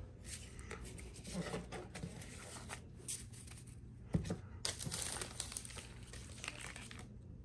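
Faint rustling and crinkling of Pokémon card packaging and cards being handled, with a few light taps and a louder crinkly stretch about five seconds in.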